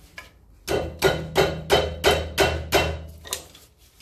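Hammer tapping on metal at a Land Rover hub: about eight evenly spaced, ringing blows at roughly three a second, starting about half a second in.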